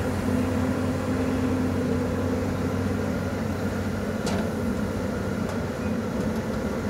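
Caterpillar 320D long-reach excavator's diesel engine running steadily as the machine swings its boom and moves a bucket of soil, with a single short knock a little after four seconds in.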